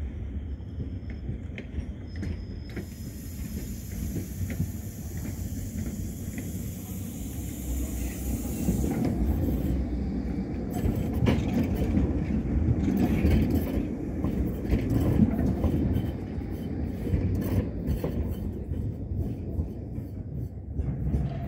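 Articulated low-floor electric tram passing close by at low speed. Its rumble builds to a peak about halfway through, with a run of sharp clicks as the wheels go over rail joints and points, then fades. A high hiss sounds for several seconds in the first part.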